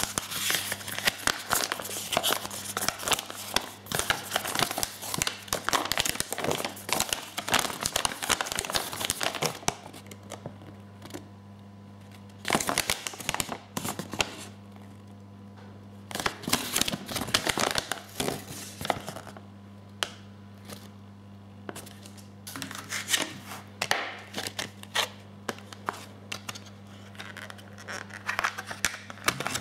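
Paper leaflet being unfolded and handled, crinkling and rustling almost continuously for about the first ten seconds, then in separate bursts with quiet gaps between. A steady low hum runs underneath.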